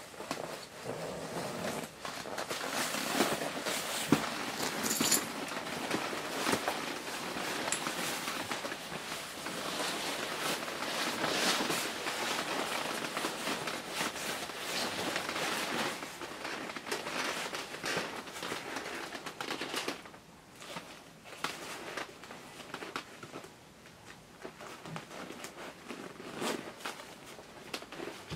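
Shiny nylon snowmobile suit rustling, swishing and crinkling as it is put on and moved in, with many small crackles. The rustling becomes quieter and sparser about two-thirds of the way through.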